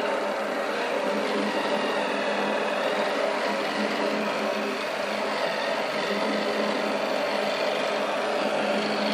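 Electric toothbrush buzzing steadily in the mouth while the teeth are brushed.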